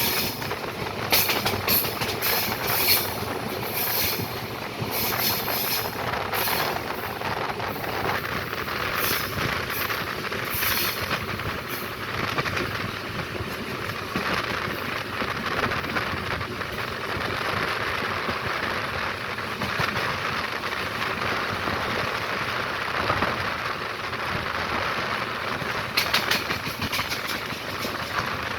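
Moving train: a steady rumble of wheels on track, with runs of rapid clicking as the wheels cross rail joints in roughly the first twelve seconds and again near the end.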